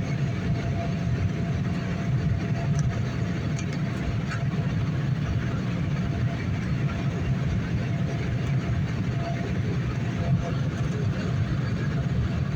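Steady low rumble of aircraft engines and rushing air heard inside the cabin in flight, with a faint steady tone running through it.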